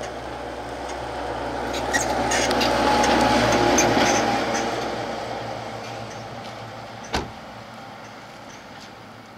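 British Army Jackal reconnaissance vehicle driving past, its diesel engine and tyres swelling to a peak about three to four seconds in and then fading away. A single sharp knock comes about seven seconds in.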